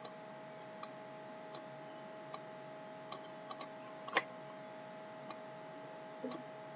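Computer mouse clicking: about ten short, sharp clicks at uneven intervals of under a second, the loudest about four seconds in, as points are placed while drawing a shape on screen. A faint steady electrical hum runs underneath.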